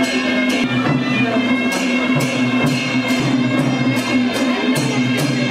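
Music: a melody over a steady held drone, with a sharp percussion stroke about twice a second.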